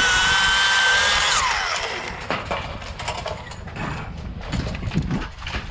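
Stihl chainsaw revved at full throttle in a steady high whine, then throttled off about a second and a half in, its pitch falling away. Scattered knocks and rattles follow.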